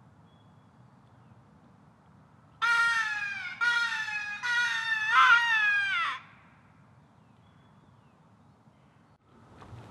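Crow locator call blown in about four loud, harsh caws in quick succession, each falling in pitch, the last one longest. A turkey hunter sounds it to shock a tom into gobbling.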